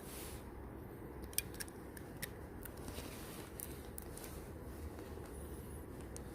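Scattered light clicks and taps from handling a smartphone and its small parts during reassembly, a dozen or so at irregular intervals, over a low steady hum.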